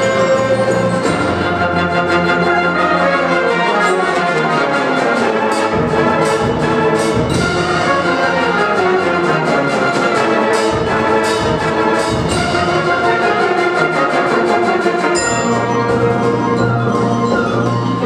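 Wind ensemble playing a loud full-band passage, brass and woodwinds together, with a run of sharp percussion strikes through the middle.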